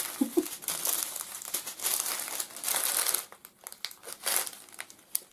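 Crinkling of a strip of thin plastic bags of diamond-painting gems being unfolded and handled, an irregular crackle that is busiest for the first three seconds, then thins out with one short burst after about four seconds.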